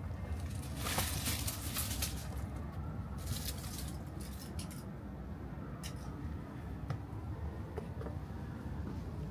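Rustling and scuffing on dry leaves and grit in two short spells, then a few light clicks, over a low steady rumble.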